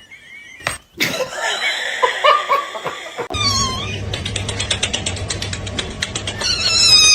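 A cat meowing and yowling, with short calls and then a longer wavering one near the end, over background music.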